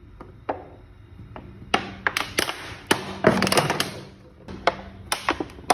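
Thin plastic bottle being handled and pierced with a hot screwdriver tip on a stone countertop: a string of sharp taps and crinkly plastic clicks, sparse at first and busier after the first couple of seconds.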